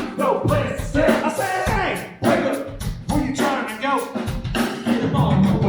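Live band playing a song: drum kit keeping a steady beat under a sung or melodic lead line.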